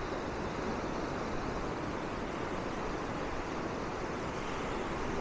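Steady rushing noise of surf breaking on the beach, even throughout with no distinct events.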